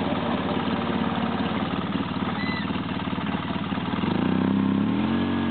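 Polaris Sportsman 800 ATV's twin-cylinder engine idling with a fast, even beat, then revved up about four seconds in, its note rising and holding higher as the quad pulls up a steep rocky slope under load.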